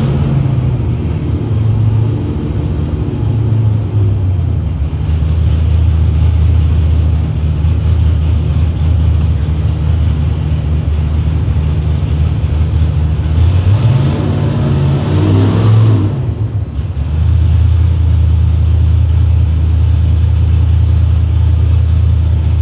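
Whipple 3.0-litre supercharged 427 cubic inch LS V8 running on an engine dyno on E85 at 15 pounds of boost. It runs loud and steady, rises in pitch as it revs about two-thirds of the way through, drops off briefly, then settles back to a steady run.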